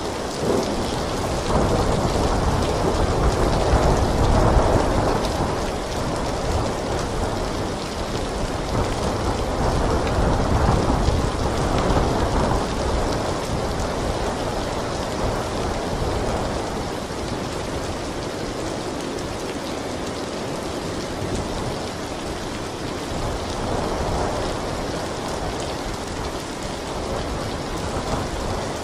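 Heavy rain falling steadily, with low rolling thunder that swells and fades several times, loudest about four seconds in.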